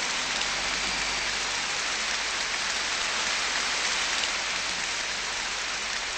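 Large live concert audience applauding steadily at the end of a song.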